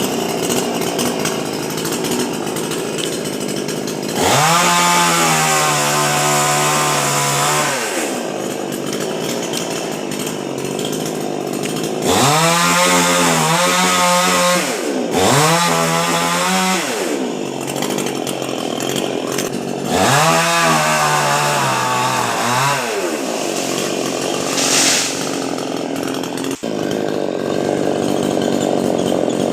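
Chainsaw cutting into a coconut palm trunk, its engine revving up and falling back several times between stretches of lower running.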